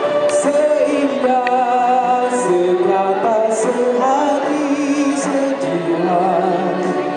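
A man singing a song into a microphone over recorded backing music, heard through a public-address loudspeaker.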